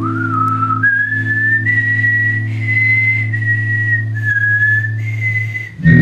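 A man whistling a slow melody of a few long held notes, rising in pitch at the start, over an electric guitar chord ringing out. Just before the end the chord dies away and a new loud chord is struck.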